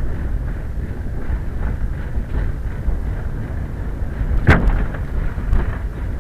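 Quest velomobile rolling over rough pavement with a steady rumble of road and wind noise; about four and a half seconds in, a single sharp bang as the left wheel drops violently into a pothole, the hit that pinch-flats the inner tube (a snakebite), followed by a couple of smaller knocks.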